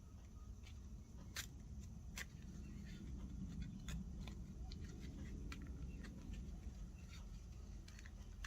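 Scattered light clicks and taps of board game box-insert pieces being handled and fitted together, over a low steady hum.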